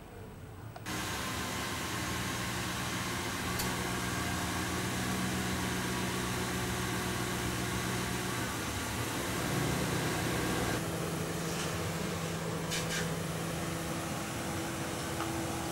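Mercury Grand Marquis sedan's V8 engine starting about a second in and running at a steady idle, its note changing about ten seconds in as the car pulls away.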